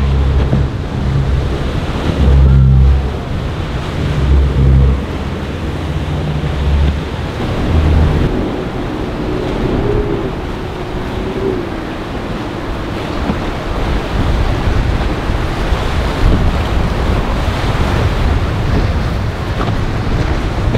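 Rough inlet water churning and boat wakes splashing as motor yachts run through under power, with wind gusting on the microphone, heaviest in the first several seconds.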